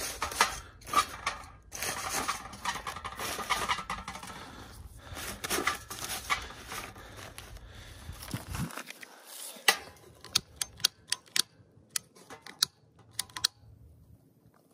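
Dry kindling sticks being handled and dropped into a small homemade metal camp stove packed with crumpled newspaper, clattering and rustling. In the second half, a run of sharp, separate clicks.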